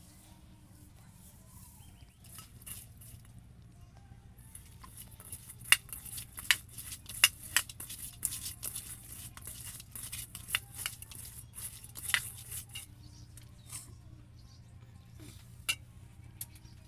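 A hand mixing fish pieces in spice paste in a steel bowl: wet squishing with sharp clinks and taps on the metal, thickest in the middle, thinning to a few single clicks near the end.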